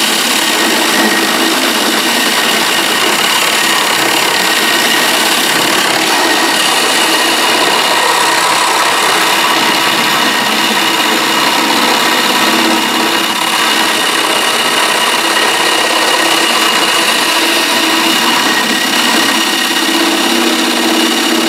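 A cordless drill spins a golf ball core against a clamped wood rasp, shaving it down. The result is a loud, steady rasping and grinding over the drill's motor whine.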